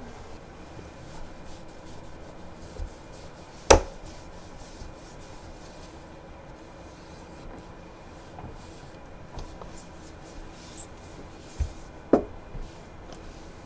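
Kitchen cleaning: steady rubbing and wiping, with two sharp knocks, one about four seconds in and one near the end.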